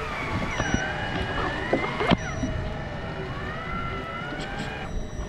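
Electric fishing reel winding in line, its motor whine sliding down and up in pitch several times, with a sharp click about two seconds in, over a low rumble.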